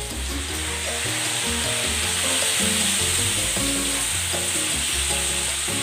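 Chicken and vegetables sizzling steadily in a hot pan just after a splash of water goes in, with a wooden spatula stirring through them. Light background music plays under the sizzle.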